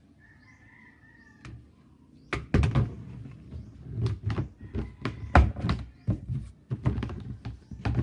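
Plastic tub and lid of a twin-tub washing machine being handled: a run of irregular, sharp knocks and thumps that starts a little over two seconds in.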